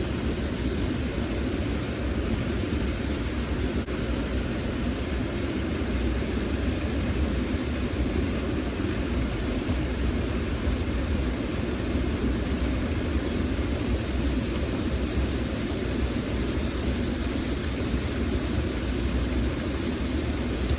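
Steady rushing of flowing river water, an even noise with no breaks or separate events.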